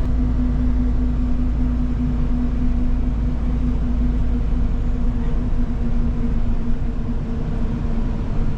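Steady engine and road noise inside a moving vehicle's cabin: a low rumble with a constant low hum.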